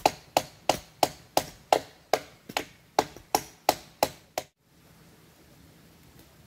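Wood being chopped with an axe in quick, even strokes, about three a second, stopping abruptly a little over four seconds in; only faint background noise after.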